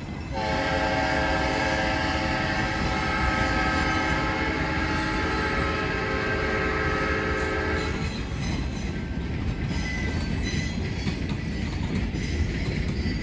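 Diesel locomotive air horn sounding one long steady chord for about seven and a half seconds, from the lead EMD SW8 switcher out of sight up the line. Under it is the rolling rumble and clatter of freight cars and cabooses passing on jointed track. The horn cuts off about eight seconds in, leaving the rolling noise of the train's tail.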